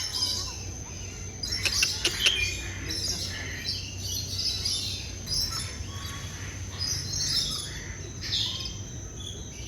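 A flock of parrots in an aviary, with many short chirps and squawks overlapping throughout, over a steady high-pitched whine.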